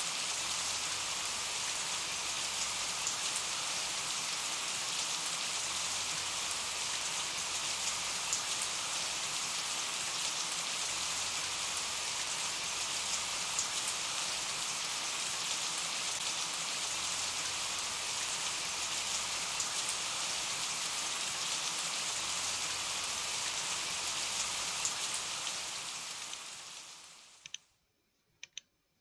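Steady rain: an even hiss of falling rain with scattered faint drop ticks. Near the end it fades out to near silence, leaving a few faint ticks.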